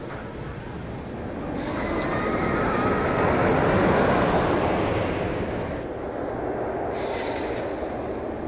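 Kingda Ka steel roller-coaster train running up its top-hat tower, a rush of wheel and track noise that swells to its loudest about halfway through, then eases.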